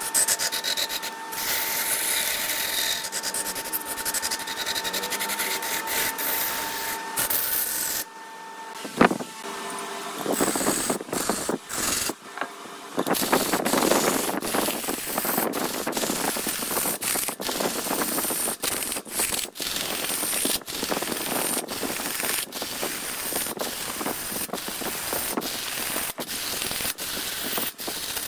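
Wood being cut on a lathe: a tool scraping and rubbing against the spinning wood, with a steady motor whine under it for the first several seconds. The sound drops away for a few seconds, with one sharp knock about nine seconds in. Rough, rapid scraping then resumes.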